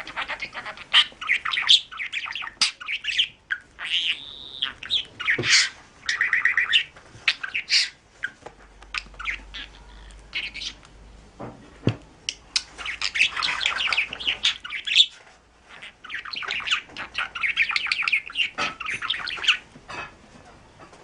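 A pet bird calling in rapid runs of high, shrill notes, with a couple of short pauses.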